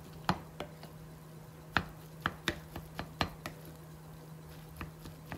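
Wooden spoon mixing cooked rice in a glass bowl: soft squishing of the rice, with about ten irregular light clicks as the spoon knocks the glass.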